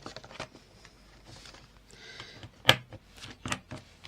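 Paper pages being handled and shuffled on a craft table, with a few sharp knocks, the loudest about two and a half seconds in and another just after.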